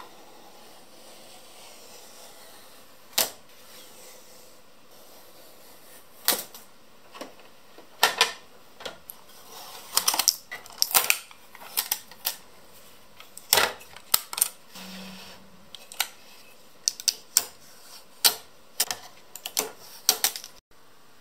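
Protective tape being peeled and plastic packing pieces pulled off a Silhouette Cameo 4 cutting machine: a run of sharp crackles and clicks, sparse at first and coming thick and fast from about six seconds in.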